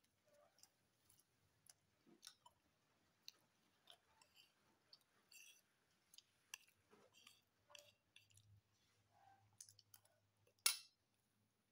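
Faint chewing and wet mouth clicks of someone eating chicken satay, with scattered small clicks and one sharper, louder click near the end.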